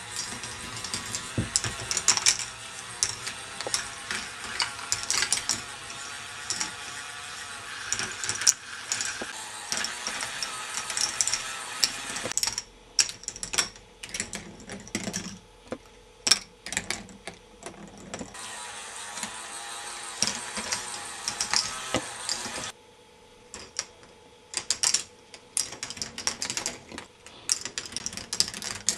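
K'nex ball machine running: plastic balls clicking and clattering through the plastic tracks and elements over the steady whir of the chain lift. The whir drops away twice, leaving mostly irregular clicks.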